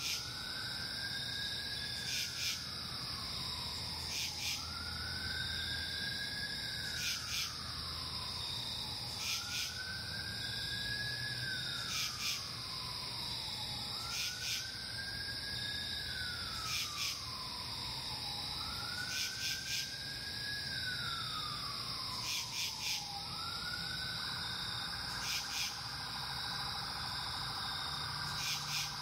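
Steady chorus of night insects trilling. Over it, a whistling tone rises, holds briefly and slides down again about every two and a half seconds, then holds steady near the end. Pairs of short ticks fall in between.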